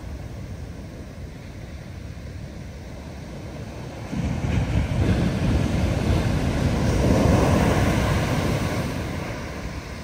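Big ocean waves breaking: a steady wash of surf, then a large wave's crash swelling about four seconds in, loudest toward the end and then fading.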